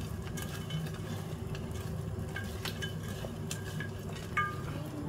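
Hands tossing pieces of barbecued chicken in a stainless steel bowl: scattered soft clicks and rustles, with the metal bowl ringing briefly now and then, most clearly about four seconds in.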